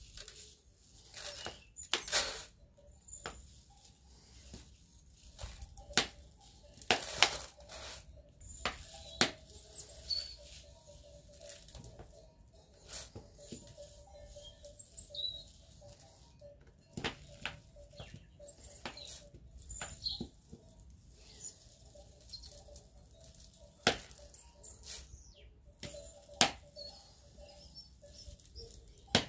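Thin plastic soda bottle crinkling and crackling in the hands as it is squeezed and worked, giving irregular sharp clicks with short pauses between them.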